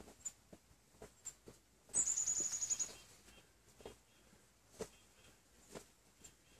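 Soft, scattered swishes of a cotton-fabric tinder bundle being swung by hand to aerate a smouldering ember. About two seconds in, a bird gives a rapid high trill of about ten notes lasting just under a second, the loudest sound.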